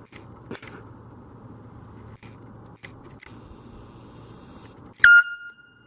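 Steady background noise with a few faint clicks, cut off about five seconds in by a sudden loud, high-pitched ring that fades quickly to a thin held tone.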